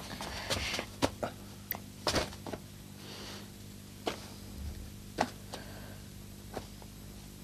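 Irregular footsteps and shoe scuffs on a tiled floor, with a few light knocks, most of them in the first couple of seconds, over a faint steady hum.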